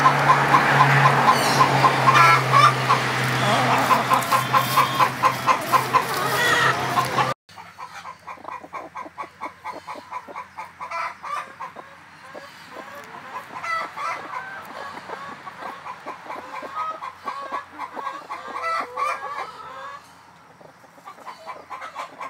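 Hens clucking as they forage through a pile of pulled garden weeds, with rapid strings of repeated clucks over a low steady hum. About seven seconds in, the sound cuts abruptly to quieter, scattered clucking with soft ticks.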